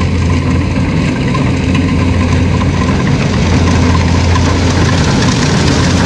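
Rice combine harvester's engine running steadily with a low, even hum and mechanical clatter.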